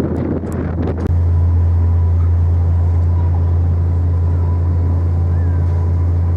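Steady deep drone of a car ferry's engines and machinery, heard on board. Wind buffets the microphone for the first second, then drops away abruptly.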